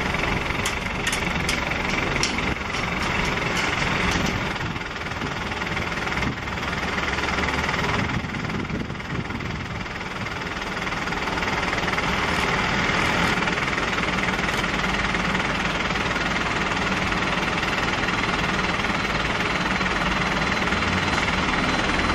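Boeing 747-400's four turbofan engines running at taxi power as the jet rolls along the runway: a steady rumble and hiss with a thin high whine. It dips a little for a few seconds in the first half, then holds even.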